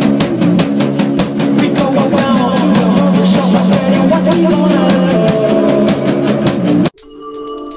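Rock band playing live: electric guitars and bass over a fast, steady drum beat. About seven seconds in it cuts off abruptly and a short electronic station jingle begins, a sustained chord of held tones.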